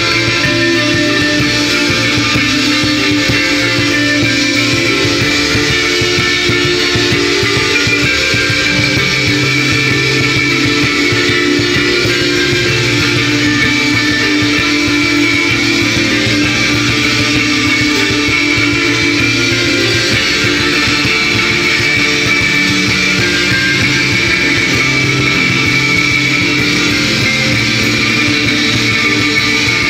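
Instrumental post-rock band playing live: layered electric guitars over bass and drums, loud and steady.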